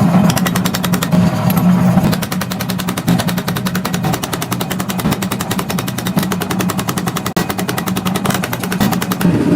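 A machine hammering rapidly and evenly on metal, about ten blows a second, over a steady low hum.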